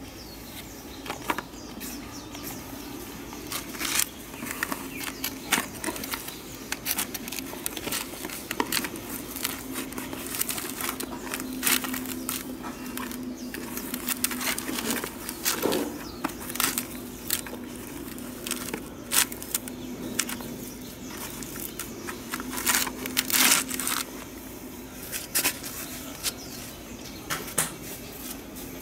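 Dry coconut fibre (coir) crackling and rustling in irregular snaps as fingers push onion pieces into it in a plastic tub. A faint steady hum runs underneath.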